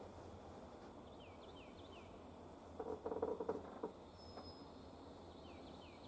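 Quiet outdoor background with a small bird giving short runs of quick falling chirps, twice. About three seconds in comes a rapid rattling burst lasting about a second, the loudest sound.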